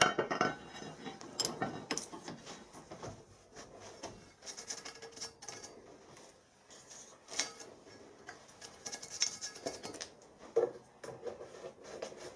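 Scattered light clinks, taps and rubbing as an aluminium crankcase casting is handled and wiped down with acetone on a workbench.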